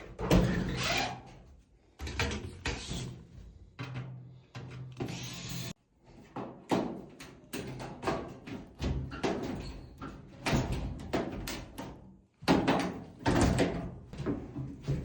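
Irregular clunks and knocks of metal parts being handled, with a low hum that comes and goes and cuts off suddenly about six seconds in.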